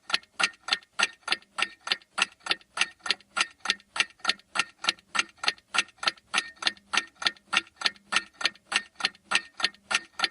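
Countdown timer's ticking sound effect: a fast, even clock-like tick-tock, about three to four ticks a second.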